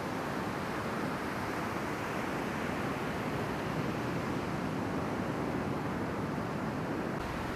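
Ocean surf: waves breaking and washing ashore in a steady rushing noise.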